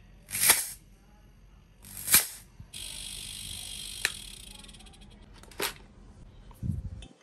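Short, sharp bursts of compressed air hissing from the copper pipe of a refrigerator compressor rigged as an air compressor, followed by a steady hiss that fades away. A click about four seconds in and a dull thump near the end.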